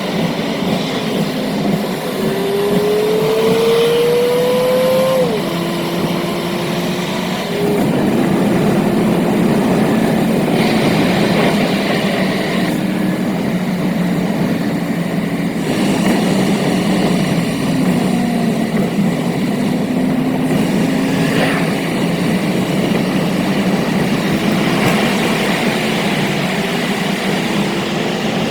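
Car driving at speed: a continuous road and engine roar, with the engine note rising from about two seconds in and falling away suddenly at about five seconds.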